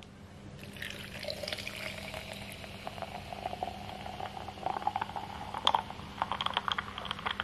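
Carbonated creaming soda poured from a can into a glass mason-jar mug, fizzing and crackling. The pour's pitch rises as the jar fills, and the fizz gets busier near the end.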